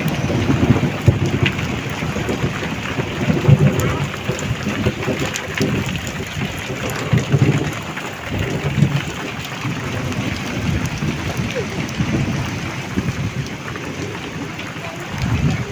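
Heavy rain falling steadily, a continuous hiss of drops, with low rumbles that swell and fade every few seconds underneath.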